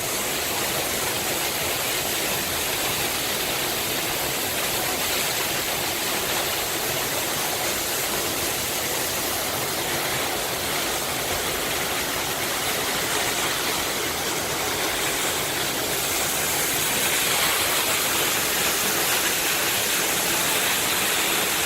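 Waterfall rushing: a steady, even roar of falling water, a little louder near the end.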